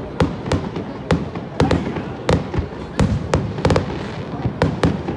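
Aerial fireworks bursting in a rapid, irregular run of sharp bangs, several a second, with a continuous low haze of sound between them.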